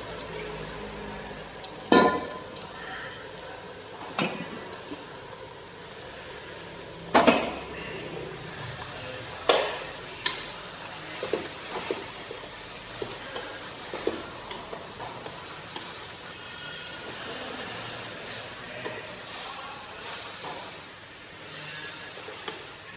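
Leafy greens sizzling as they are stir-fried in hot oil in a pan on a gas burner, tossed with chopsticks. Sharp knocks and clanks of utensils and cookware come now and then, the loudest in the first ten seconds, with lighter clicks later.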